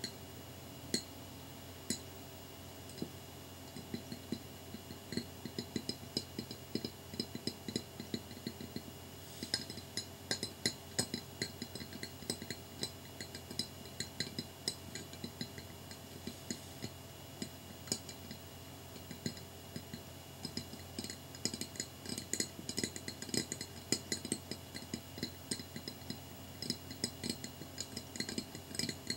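Fingernails tapping rapidly on a small glass mirror: quick, light, irregular glassy clicks that come thicker and faster from about a third of the way in.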